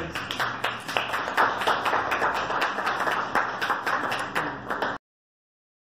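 A small audience applauding: many hands clapping at an even pace. It cuts off suddenly about five seconds in.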